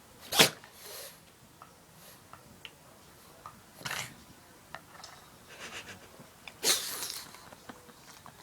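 A pug making sharp nasal snorts and sneeze attempts that don't come off. There are four bursts: the loudest about half a second in, others around one and four seconds, and a longer one near the end.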